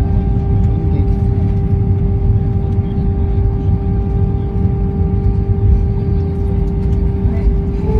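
Airliner cabin noise: a steady low rumble with a constant mid-pitched whine.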